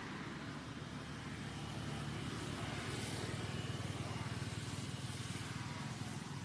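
A vehicle engine running steadily, a low, even drone.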